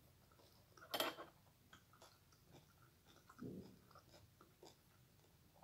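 Faint close-up eating sounds: a person chewing food, with one sharper bite or click about a second in and a softer wet chewing sound at about three and a half seconds.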